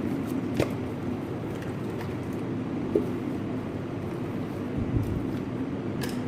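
Steady low hum with a few light clicks and a soft thump about five seconds in.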